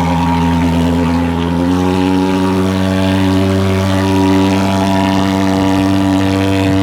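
Thermal fogging machine running with a loud, steady buzzing drone; its pitch steps up slightly about two seconds in.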